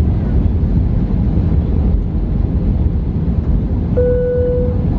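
Steady cabin noise of an Airbus A320 on its landing descent: a deep, even rumble of engines and airflow. About four seconds in, a single steady electronic chime tone sounds for under a second.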